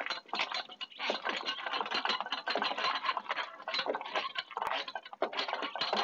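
A cart rattling along as it is pulled by hand, with a dense, irregular clatter that goes on without a break.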